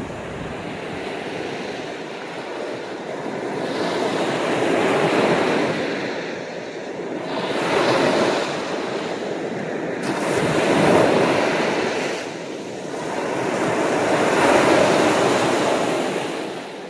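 Surf washing onto a beach, each wave swelling and fading about every three seconds.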